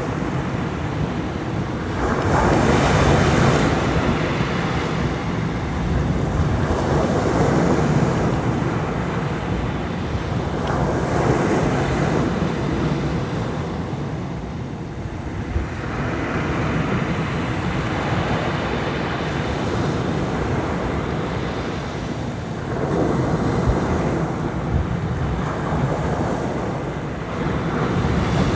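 Heavy surf whipped up by an approaching typhoon, breaking on the shore as a continuous rush of water that swells with each incoming wave every few seconds.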